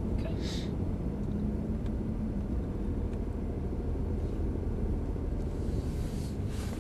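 Steady low rumble inside a BMW i8's cabin as it drives slowly, mostly road and tyre noise with a faint steady drone. A brief hiss comes about half a second in.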